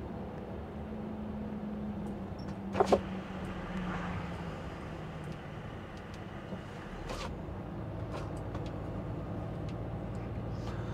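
Truck engine and road noise heard from inside the cab while driving: a steady low drone whose pitch drifts slightly lower. Two short, sharp sounds come about three seconds in.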